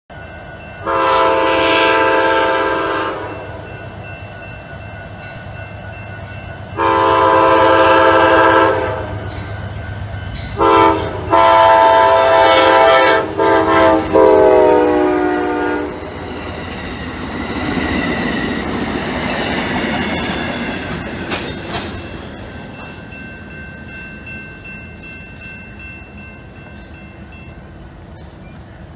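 Amtrak P42DC passenger locomotive sounding its horn for a grade crossing: two long blasts, a short one and a long final one, its pitch dropping as the engine passes. The passenger cars then rumble and click past and fade away.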